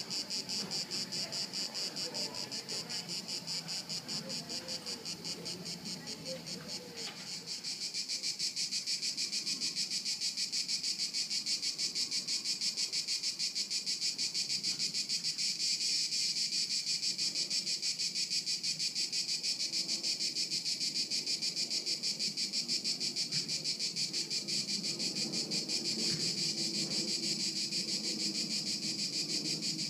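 Dense chorus of singing insects: a high, evenly pulsing buzz that grows louder about eight seconds in and then holds steady.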